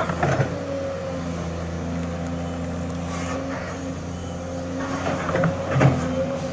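Sany hydraulic excavator's diesel engine running steadily, with two bursts of clanking and scraping from the machine working the soil, just after the start and again near the end.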